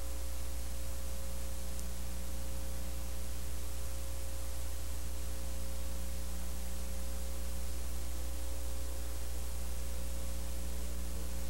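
Steady low electrical hum over a constant hiss, with a few faint steady tones above it and no other sound.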